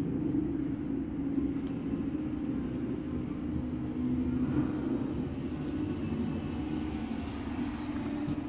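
A machine running with a steady low drone.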